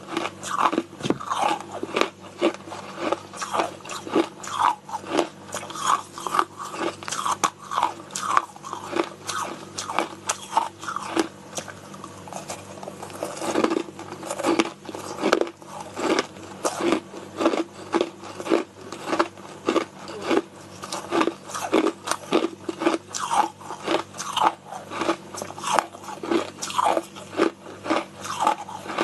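Person biting and chewing frozen flavoured crushed ice close to the microphone: a steady run of crisp crunches, several each second.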